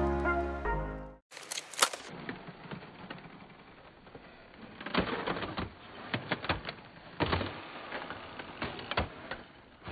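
Electronic music fading out in the first second, then slow, irregular footsteps crunching on frost-covered ground.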